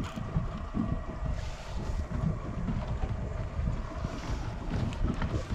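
Wind buffeting the microphone in uneven gusts, with a faint steady hum underneath and brief hissing swells, like water, about a second and a half in and again around four seconds.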